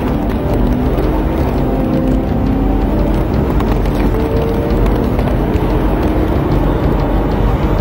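Police cruiser driving at highway speed, with steady, loud road and engine noise heard from inside the car and faint tones gliding slowly up and down behind it.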